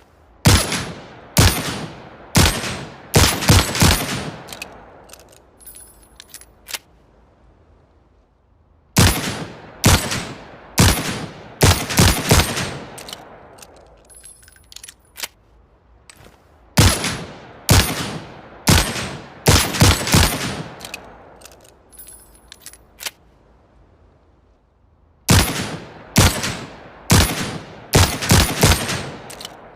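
Manurhin MR-73 revolver firing in four strings of six shots, about eight seconds apart: in each string the first shots come about a second apart and the last three in quick succession, each shot ringing out briefly. Light metallic clicks sound in the gaps between strings.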